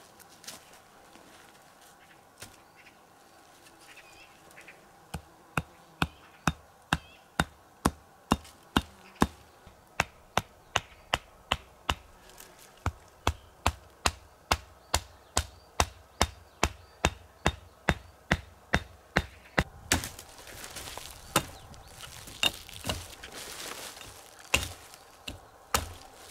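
Wood being chopped with quick, even strokes, about two a second, starting about five seconds in and stopping near twenty seconds. Rustling follows, with a few scattered knocks.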